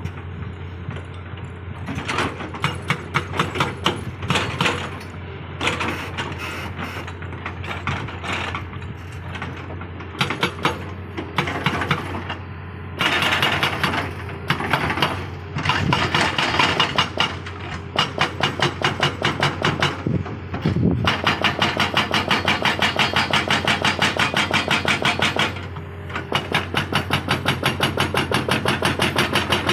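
Excavator-mounted hydraulic rock breaker hammering, with the excavator's diesel engine humming steadily underneath. The blows come in short stop-start bursts at first, then settle into a long run of rapid, even strikes over the second half, broken once by a brief pause.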